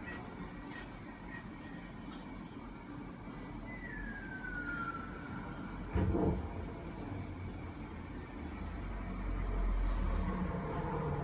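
Film soundtrack effects from a Blu-ray disc played back over a hi-fi system. A whistle-like tone glides down in pitch about four seconds in. A sudden low boom comes about six seconds in, then a deep rumble swells towards the end.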